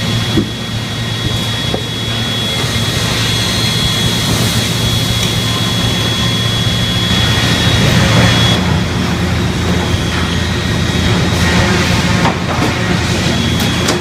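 Sawmill production machinery running: a steady loud industrial din of motors and conveyors with a low hum and a high steady whine, broken by a few brief knocks. The whine drops out about eight and a half seconds in and comes back near the end.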